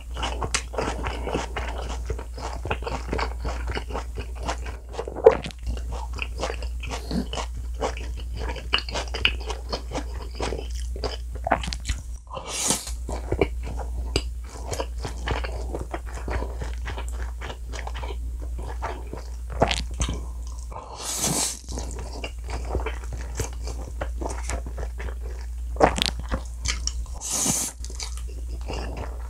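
Close-miked mouth sounds of eating jjajang noodles: steady wet chewing and smacking with small clicks, broken three times by a longer slurp of noodles.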